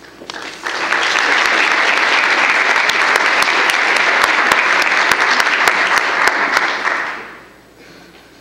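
An audience applauding in an auditorium, starting about half a second in, holding steady for about six seconds and fading out near the end.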